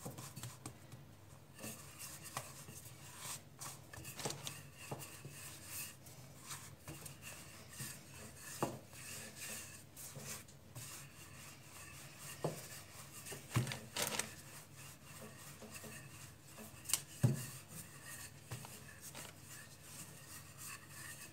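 Hands pressing and flattening a ball of soft bread dough on a floured countertop, then a wooden rolling pin rolling it out: soft rubbing and scraping, with occasional light knocks on the counter.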